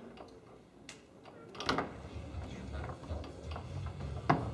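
Sharp knocks and clicks of play on a Tornado foosball table: the ball struck by the rod-mounted plastic men and rapping against the table. The knocks are scattered, the loudest comes near the end, and a quick run of smaller clicks follows it.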